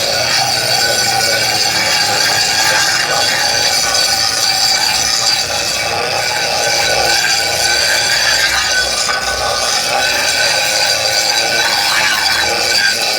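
Grinder running steadily against a metal frying pan, abrading its surface clean, with a constant high-pitched whine.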